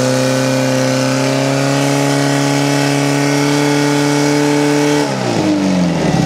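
Portable fire pump's petrol engine running flat out at a steady high pitch as it feeds water into the attack hoses. About five seconds in, the revs drop and the pitch falls away as the pump is throttled back.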